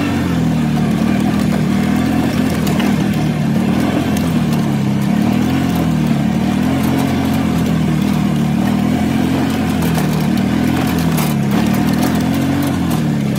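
Engine of a small farm vehicle running while driving, its pitch rising and falling every second or so.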